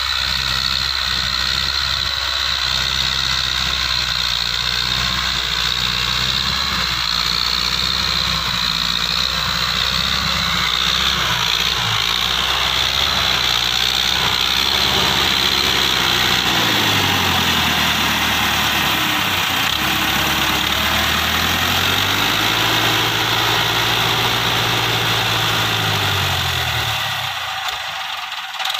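Massey Ferguson 185 tractor's four-cylinder diesel engine running steadily while it drives a rotary tiller through the soil. In the second half the engine note sags and comes back up a couple of times.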